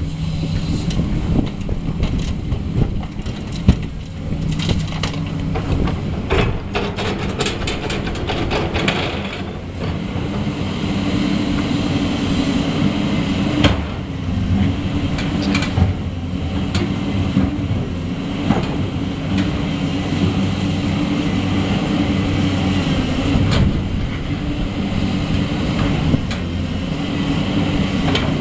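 Heavy diesel machinery, excavator and dump truck, running steadily under load, with a run of rapid clanking about a quarter of the way in and scattered metal knocks, one sharp one near the middle.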